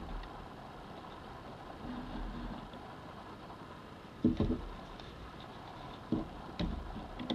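Handling noise at a sewing machine: over a steady low hum, fabric and hands knock softly against the machine a few times, about four seconds in and twice more near the end, while the fabric is worked under the presser foot.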